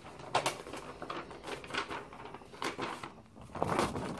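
Sheet of printed paper rustling and crinkling as it is picked up and handled, a scatter of short, irregular crackles.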